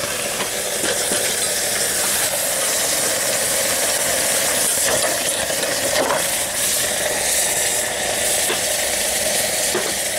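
A hot copper-alloy casting quenched in a can of water, the water hissing and sizzling steadily as it flashes to steam.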